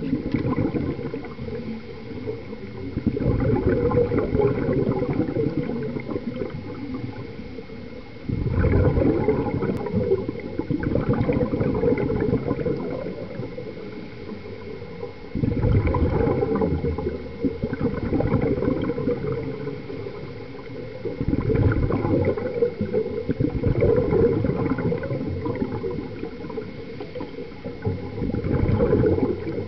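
Scuba regulator exhaust bubbles heard underwater: a burst of bubbling from a diver breathing out, every five to seven seconds in a slow breathing rhythm.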